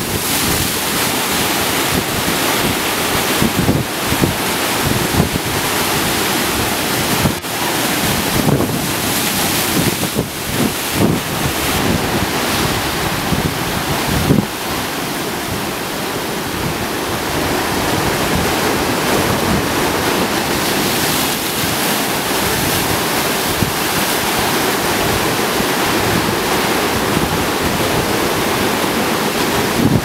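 Ocean surf breaking against rocks and foaming through the gaps between boulders: a continuous rush of water with irregular surges.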